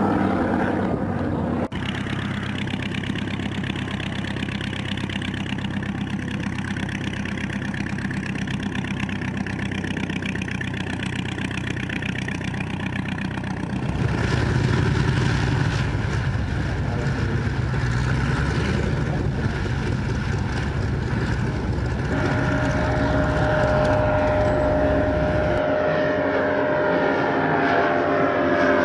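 Propeller aircraft engine running steadily, heard across several abrupt cuts. Near the end the engine note shifts in pitch.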